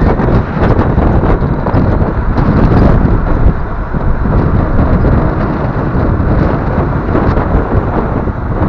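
Steady loud rumble of a 1991 BMY M925A2 military 6x6 truck on the move over a dirt riverbed, its Cummins 8.3-litre turbo-diesel running, heavily buffeted by wind on an outside-mounted microphone.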